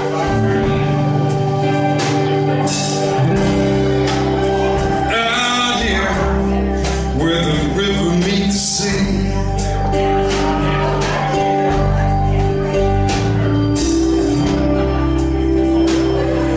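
Live band playing a song: acoustic guitar, electric bass and drums with cymbal crashes, and a man singing lead.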